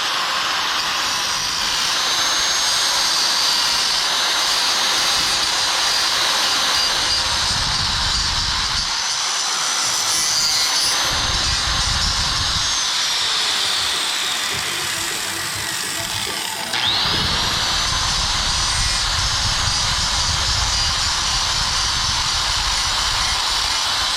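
High-speed rotary tool whining as it grinds a small channel into the e-bike frame. It runs steadily with rough grinding as it bites, winds down about halfway through, then spins up again a few seconds later and keeps cutting.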